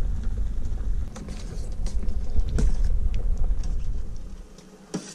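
A low rumble with scattered light clicks and knocks. The rumble drops away about four seconds in.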